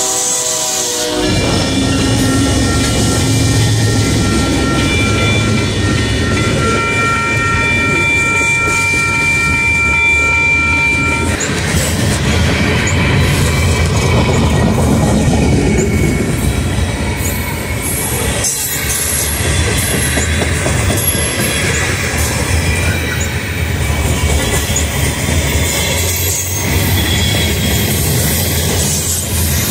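Freight train passing close by: a horn sounds at the start, and high steady tones ring on until about 11 seconds in. After that, the loud rumble and clatter of covered hopper cars rolling over the rails.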